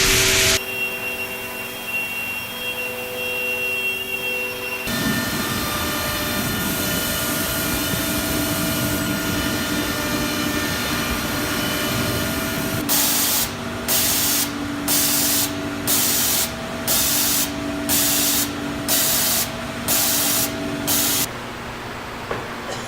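SCM Pratix S CNC router milling cabinet parts: the spindle runs with a steady high whine, and about five seconds in the sound grows fuller as it cuts. In the second half comes a regular series of about ten short hissing bursts, a little more than one a second, before the machine goes quieter near the end.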